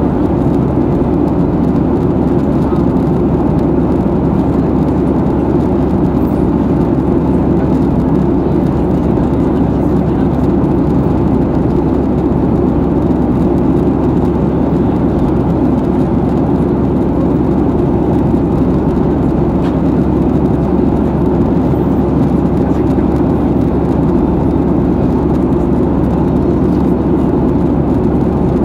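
Steady cabin noise heard inside a Boeing 737-800 in flight: the deep, even drone of its CFM56 jet engines and the rush of air over the fuselage, unchanging throughout.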